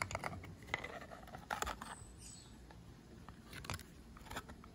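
Short clusters of clicks and scrapes, five or so, as an INGCO abrasive cutting disc and the metal flange nut are handled on an angle grinder's spindle.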